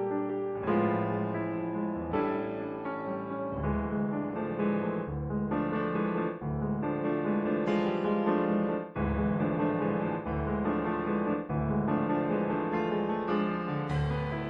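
Solo piano music, chords changing about every second, in an old-fashioned silent-film accompaniment style.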